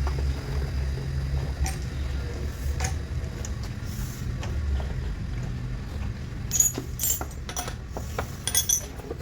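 A steady low machine hum, with scattered metallic clinks that come thicker near the end, like steel parts or tools being handled.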